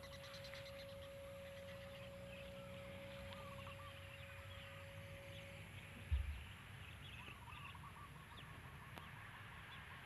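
Faint outdoor ambience with distant birds calling in scattered short chirps, and a single low thump about six seconds in.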